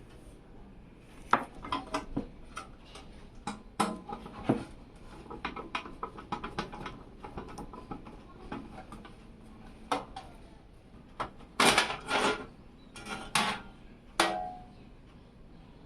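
Irregular clicks, knocks and light metallic clanks of a thin steel PC case and its parts being handled, with a few louder clanks in the second half, the last ringing briefly.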